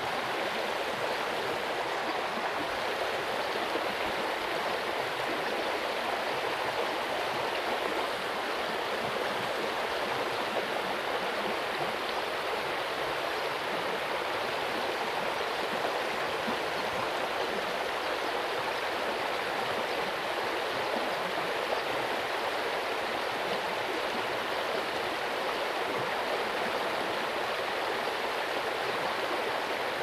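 Water flowing in a small ditch, a steady, unbroken babbling rush.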